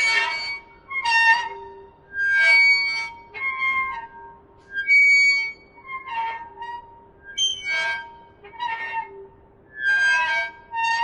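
Music: short pitched melodic phrases about once a second over a steady held drone note.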